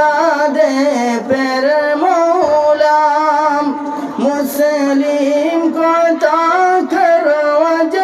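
A man singing a gojol, an Islamic devotional song, solo into a microphone, in long held notes that waver and turn in ornaments.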